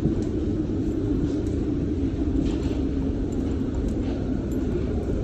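Airport background noise: a steady low rumble, with a few faint clicks.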